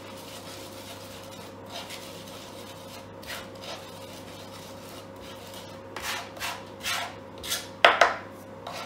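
Chef's knife blade pressed and dragged over garlic and salt on a plastic chopping board, working it into a paste. A soft rubbing scrape at first, then from about six seconds in a run of quicker, louder scrapes and knocks of the blade on the board, the loudest near the end.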